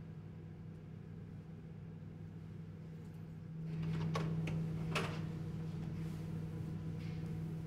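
A steady low droning hum that swells louder about three and a half seconds in, with a few light clicks over it.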